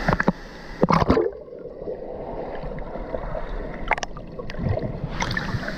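Water gurgling and sloshing around a waterfall pool, with a few sharp splashes about a second in and again around four and five seconds.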